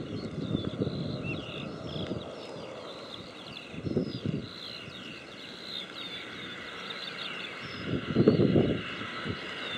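Many birds chirping continuously over a low, gusty rumble that swells briefly about four seconds in and most strongly near the end.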